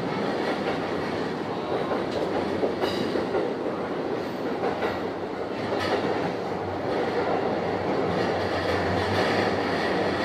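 Saikyo Line electric commuter train running through the tunnel on its approach to Ōmiya's underground platforms, heard from inside the leading car: a steady rumble of wheels on rail, with a couple of sharp clicks about three and six seconds in.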